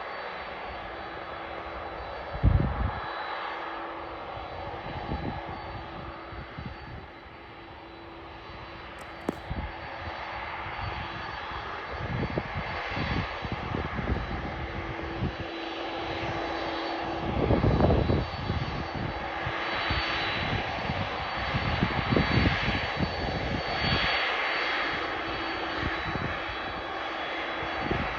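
Boeing 767 freighter's twin jet engines running, with a steady hum and a noise that grows louder over the second half. Short low rumbles break in now and then, the biggest about two and a half seconds in and near eighteen seconds.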